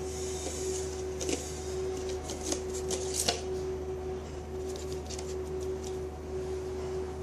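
Clear plastic PET cup being handled, its thin walls crackling and clicking a few times and then giving a run of lighter ticks, over a steady electrical hum.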